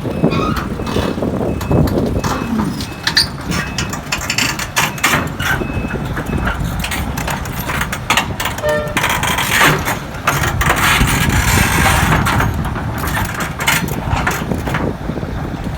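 Heavy diesel machinery running under load as an excavator is loaded onto a lowbed trailer, with a continuous low rumble and many irregular knocks and clanks.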